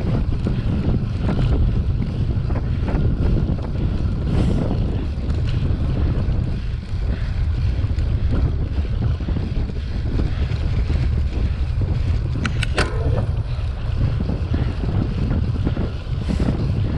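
Wind buffeting a bike-mounted action camera's microphone at race speed, with the bicycle rattling and knocking as it rides over bumpy grass. A brief high squeak about three quarters of the way through.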